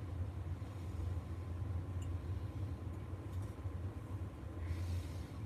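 Steady low hum of room tone, with a couple of faint light clicks and a brief rustle near the end as parts are handled.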